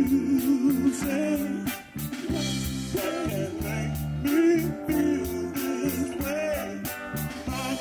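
Live band playing: a male voice singing over electric bass, electric guitar and a drum kit keeping a steady hi-hat beat of about four ticks a second.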